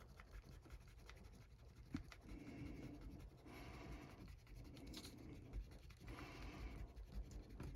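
Eraser rubbing back and forth on the paper edge of an old comic book's spine, scrubbing off grime. It comes as a run of faint rubbing strokes, each about a second long, starting about two seconds in.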